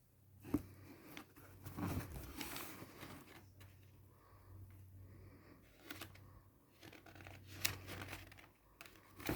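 Packaging being handled during an unboxing: irregular crinkling and tearing of paper or plastic, with a few sharp clicks and a steady low hum underneath.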